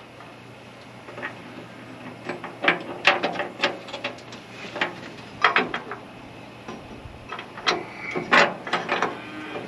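Irregular metallic clicks, clinks and knocks of hand tools and baler parts being handled while a part is fitted back on, in a few clusters with short gaps between.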